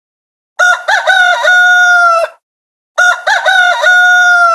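Rooster crowing twice, cock-a-doodle-doo: each crow is a few short notes ending in a long held note.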